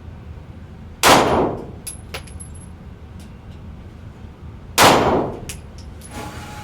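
Two gunshots about four seconds apart, each with a short dying tail. A few light metallic clicks follow the first.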